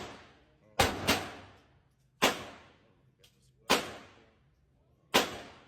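Gunshots from a large-calibre gun: five shots, two in quick succession about a second in, then one roughly every second and a half. Each has a long echoing tail.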